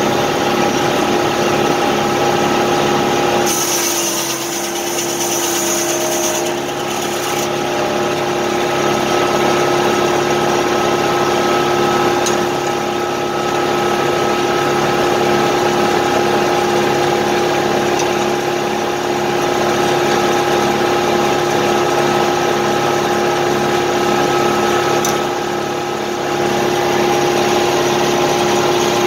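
Tractor engine running steadily, with a steady whine over it. A brief hiss comes in about four seconds in and stops a few seconds later.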